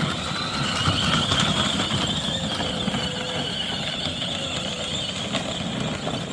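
Electric drive motors and gearboxes of a 24V kids' ride-on car whining steadily as it drives through snow, over a low rumble.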